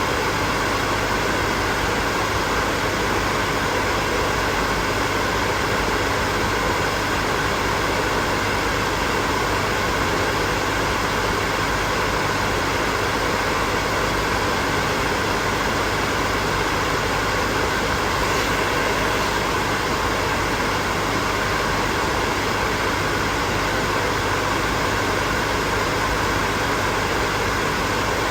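Electric hair dryer running steadily: an even rush of blown air over the motor's hum, with no change in speed.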